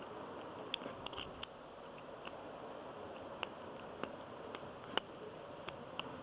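Faint, irregular clicks of a Southord mountain-style pick working the pins of a TESA T5 half cylinder as they set under light tension, over a steady hiss.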